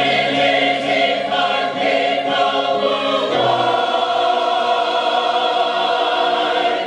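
Large choir singing a slow passage of sustained notes, settling into a long held chord about three seconds in.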